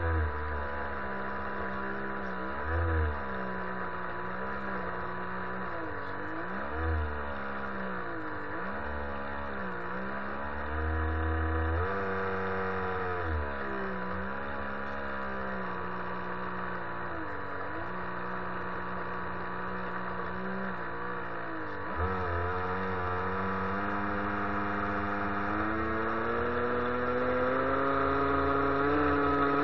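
An RC boat's motor and propeller heard from on board, running under load while towing another boat on a line. The pitch dips and recovers every few seconds as the throttle eases and picks up, then climbs steadily over the last few seconds.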